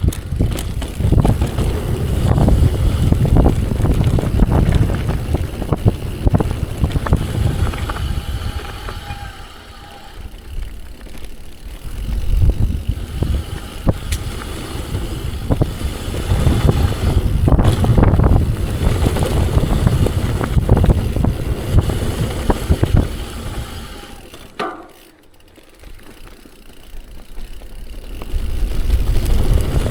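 Wind buffeting the microphone and tyres rumbling over a rooty dirt trail as a mountain bike rides downhill, the noise swelling and easing with speed. About three-quarters of the way through it drops away briefly, then comes back loud.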